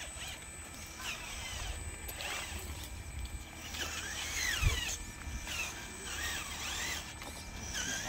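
Electric drive motor and gearbox of a radio-controlled model dump truck whining in short revs, each rising and falling in pitch. A single low thump comes about halfway through.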